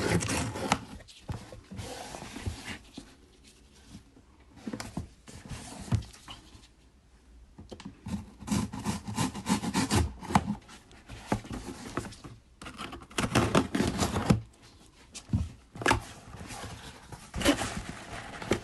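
Cardboard smartwatch box being opened and its packaging handled, with irregular bursts of rustling, scraping and tapping between quieter gaps.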